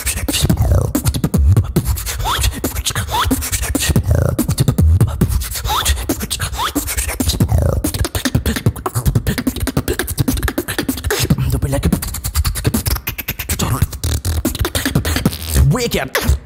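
Solo vocal beatbox routine performed into a microphone: dense, fast patterns of deep bass hits and sharp clicks, with short rising pitched vocal sweeps woven in.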